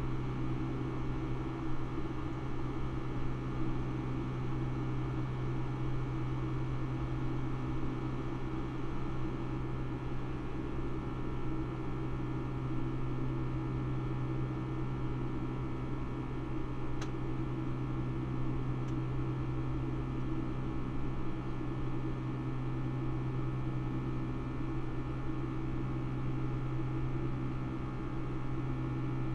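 Cabin noise of a Boeing 757-200 climbing after takeoff, heard from a window seat beside the engine: a steady jet-engine drone with a low hum and several higher steady tones over a hiss. A faint brief tick about 17 seconds in.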